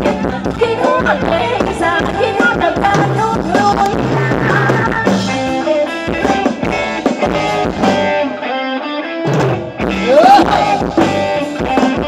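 Live band playing upbeat Thai dance music with a singer, electric guitar and drum kit. The bass drops out for a moment about three-quarters of the way through, then comes back in.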